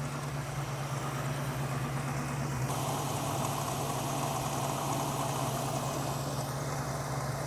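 Carbureted engine of a 1967 Ford Mustang idling steadily, its idle mixture freshly set and the idle screw backed all the way off. The idle note brightens a little about three seconds in.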